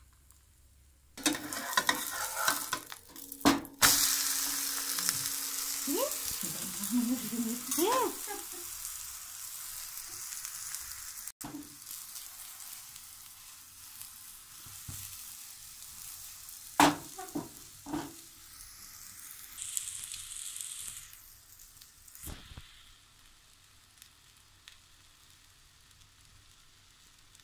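Egg omelette frying in a nonstick pan. A spatula scrapes and clatters against the pan for a few seconds as the omelette is turned over, then a loud sizzle starts as the raw side meets the hot oil and fades slowly. A few sharp spatula knocks come along the way.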